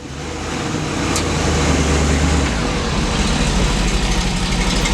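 A motor vehicle running, with engine rumble and road-type noise. It starts suddenly and holds steady and loud, and the low rumble eases a little about halfway through.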